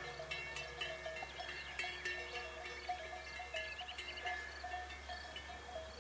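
Several livestock bells of different pitches clanking irregularly and overlapping, as grazing animals move.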